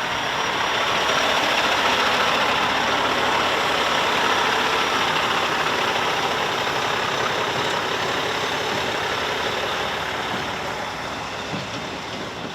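Heavy truck running with a steady, noisy engine sound that swells a little early and fades away over the last few seconds.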